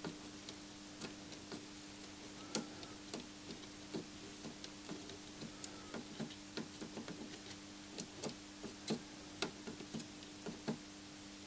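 Faint, irregular small clicks and ticks, about one or two a second, as a soldering iron and solder wire work the pins of a surface-mount chip on a circuit board, over a steady low electrical hum.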